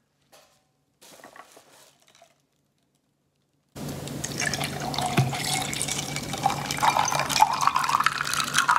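Pomegranate juice poured from a bottle over ice cubes into a stemless glass, starting about four seconds in as a steady pour whose pitch rises as the glass fills. Before it, a few faint handling rustles.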